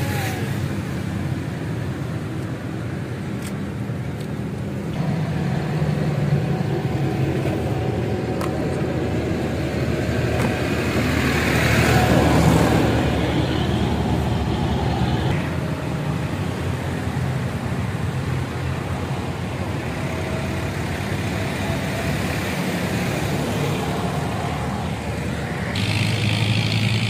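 Road traffic running steadily, a low rumble of passing cars, with one vehicle passing louder about halfway through.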